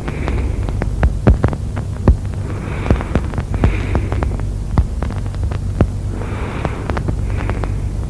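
Auscultation recording of Cheyne-Stokes breathing: soft breath sounds come in pairs about every three and a half seconds, over a steady low hum and many sharp clicks and knocks.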